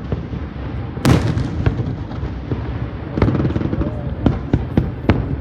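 Fireworks bursting overhead. A loud boom about a second in, then a run of sharper cracks and pops, several a second apart, from about three seconds on.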